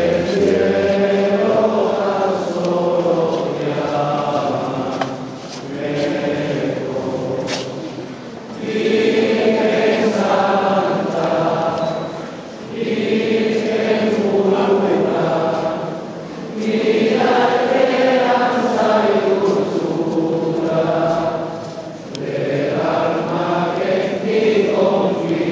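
A group of voices singing together, in phrases a few seconds long with short breaks between, echoing in a stone church.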